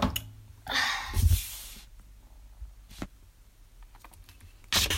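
Handling noises as a slime container is put aside: a rustle with a thump about a second in, a sharp click around three seconds, and another rustle near the end.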